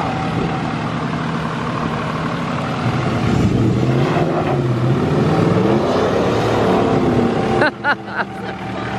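A truck engine revving, its pitch climbing to a peak about six seconds in and then dropping away, over a steady engine hum.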